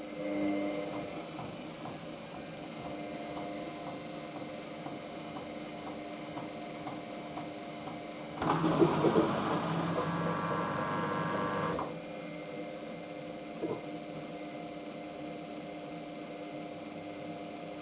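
Hoover washing machine running on its spin with an unbalanced load: a steady motor hum with light regular ticks as the drum turns, then about halfway through a louder whine as the motor speeds up for a brief spin burst of about three seconds before dropping back to the hum.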